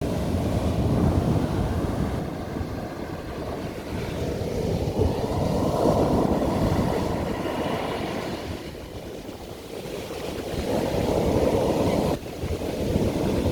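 Ocean waves breaking on a beach, the surf rising and falling in surges every few seconds, with wind rumbling on the microphone.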